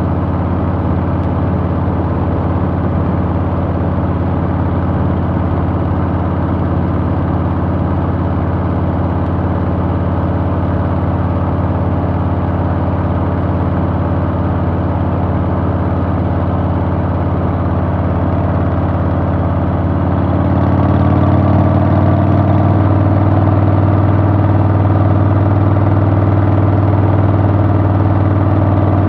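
Harley-Davidson Softail's Milwaukee-Eight V-twin engine running at a steady pace. About two-thirds of the way through it gets louder and rises in pitch, then holds steady.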